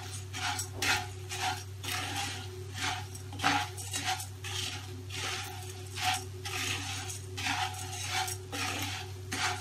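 Dry puffed rice being stirred and tossed with a spatula in a nonstick wok: a dry rustling scrape repeating about twice a second.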